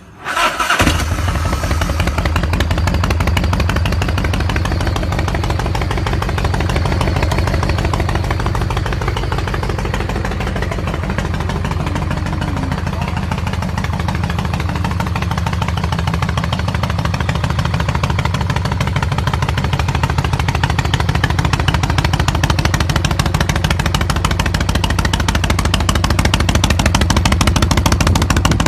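Motorcycle engine starting up and then idling steadily with a deep, evenly pulsing rumble.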